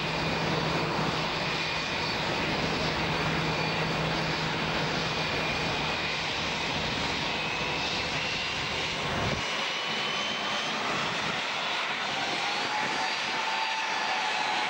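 Boeing 737 MAX jet engines (CFM LEAP-1B turbofans) running steadily as the airliner comes in on final approach and lands. A continuous roar with thin gliding whines, and a whine that climbs in pitch near the end.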